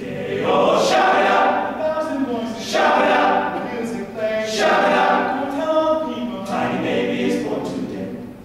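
Male a cappella ensemble singing loud, full-voiced harmony without accompaniment, in phrases that swell and ease about every two seconds.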